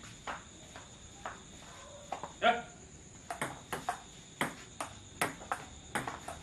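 Table-tennis rally: the plastic ball clicking off bats and the Powerspin 200 table. The hits come about half a second apart at first, then quicken to about three a second about three seconds in.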